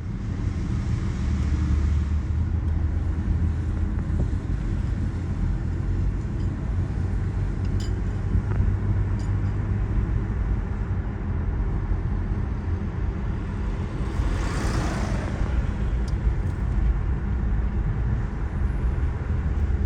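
Steady low road and engine rumble of a car being driven, with a brief swell of noise that rises and falls about fifteen seconds in.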